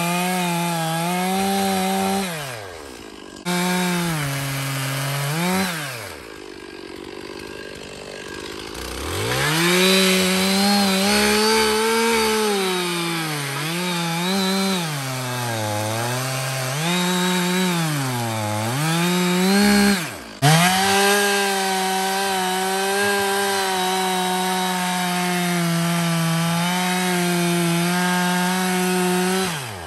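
Two-stroke chainsaw at full throttle bucking a dead log. The engine pitch sags and recovers again and again as the chain loads up in the wood, then holds steady through a long cut in the second half and drops off right at the end.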